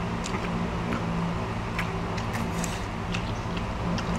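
Small scattered clicks and taps of people eating at a table, chewing and handling grilled prawns and skewers, over a steady low hum.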